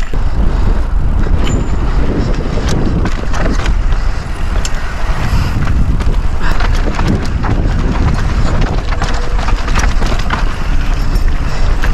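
Mountain bike descending a rocky trail: wind buffeting the microphone in a heavy rumble, with tyres running over rock and frequent sharp knocks and rattles from the bike.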